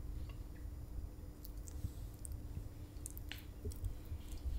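Quiet eating: chewing, with a few scattered light clicks and taps, over a faint steady hum.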